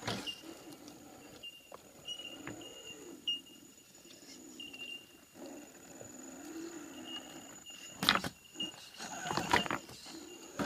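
Axial SCX10 RC rock crawler with a Novak Ballistic 18.5-turn brushless motor, its motor whine rising and falling with the throttle as it crawls over rock. Sharp knocks and scrapes of tyres and chassis on the rock come about eight seconds in and again shortly before the end.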